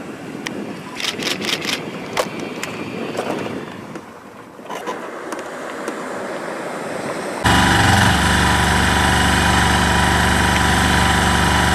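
Outdoor background noise with a few sharp clicks, then after an abrupt cut a large engine running steadily and loudly at an even speed.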